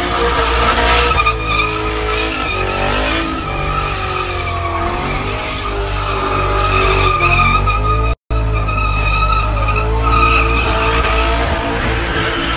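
Car doing a burnout: engine held at high revs while the rear tyres spin and squeal on the pad, the revs wavering up and down. The sound cuts out for a split second just after eight seconds.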